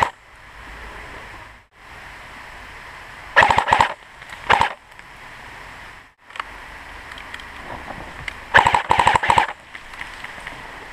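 Electric airsoft rifle firing short full-auto bursts of rapid clicks: two close together a little over three seconds in, then a longer burst near the end.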